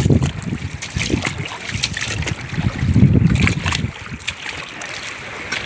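Wind buffeting the microphone in gusts, with irregular splashing of footsteps wading through shallow seawater.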